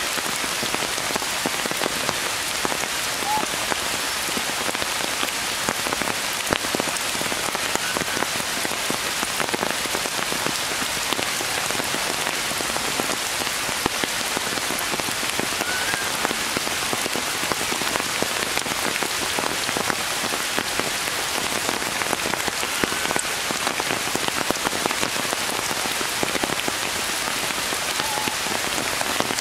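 Steady rain falling on forest leaves, a dense, even patter of drops. A few faint short chirps show now and then.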